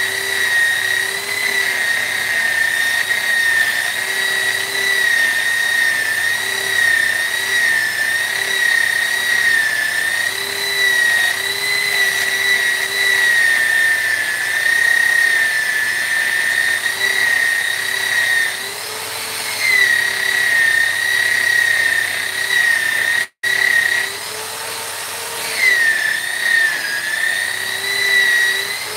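High-speed rotary carving tool whining steadily as it works wood, its pitch wavering and dipping as the bit is loaded. It eases off twice in the second half and cuts out for an instant about 23 seconds in.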